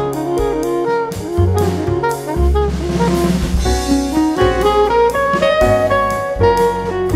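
Instrumental background music with a steady drum beat, a bass line and a melody of held notes.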